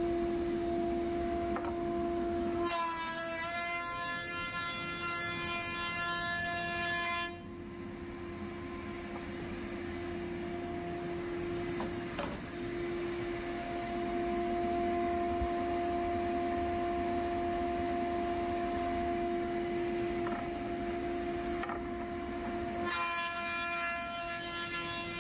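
Trotec Q400 laser engraver running a job on a pine board: a steady machine hum, with a buzzing whine rising over it from about three to seven seconds in and again near the end.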